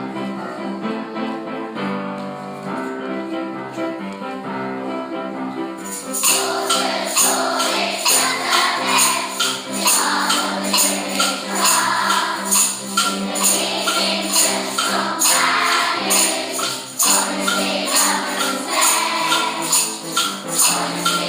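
Upbeat intro music: sustained keyboard-like chords, joined about six seconds in by a steady jingling percussion beat that makes it louder.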